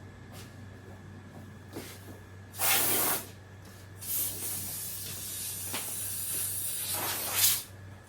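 Compressed-air blow gun hissing as it blows dust off a wooden aileron: a short blast, then after a second's pause a longer blast of about three and a half seconds that ends at its loudest.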